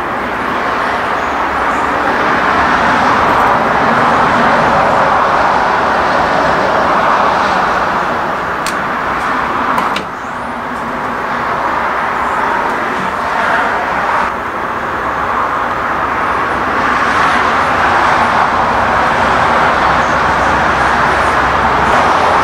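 Steady, loud rushing noise that swells and eases, with a sudden drop about ten seconds in.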